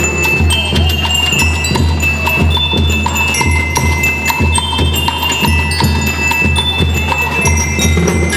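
School rhythm band playing: bell lyres ring a melody over a steady beat of bass drum and snare drums, about two beats a second.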